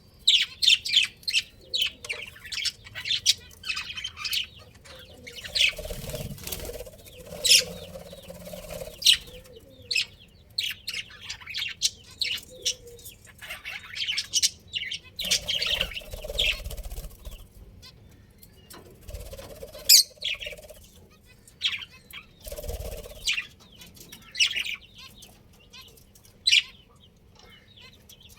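Budgerigars chirping with many short, sharp calls in quick irregular runs, broken by a few low rustling bursts.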